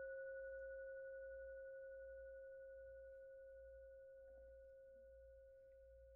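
Closing tone of an outro logo sting: a single steady, bell-like ringing tone that fades slowly and is faint throughout.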